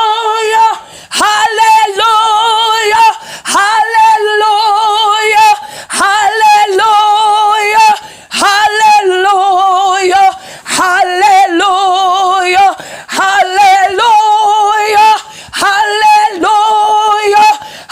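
A woman's voice singing a short phrase over and over, about one phrase every two seconds, each ending on a held note with vibrato, with no accompaniment.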